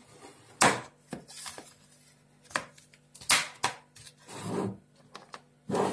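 Plastic tub and its snap-on lid being handled just after opening: about half a dozen sharp, irregular plastic clacks and knocks, the loudest about half a second and three seconds in.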